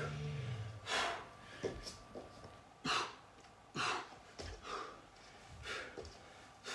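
Heavy, rapid breathing of a man doing burpees: sharp exhales about once a second, with a few light taps of hands and bare feet on the floor.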